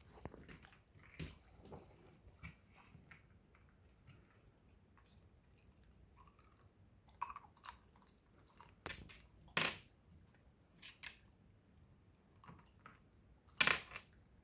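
A dog chewing and crunching ice: irregular short crunches and clicks, the two loudest about ten seconds in and near the end.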